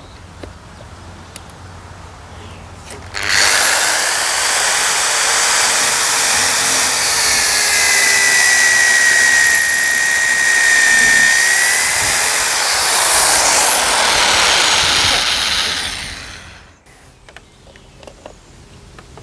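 Corded Einhell hammer drill switching on about three seconds in and running steadily at full speed as it bores into plywood, with a high whine, then winding down and stopping about three seconds before the end.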